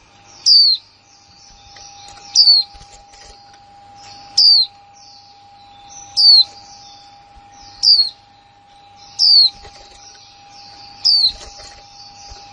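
Female white-eye giving its sharp 'kick' call, a short note sweeping steeply down from high pitch, repeated about every two seconds, seven times in all.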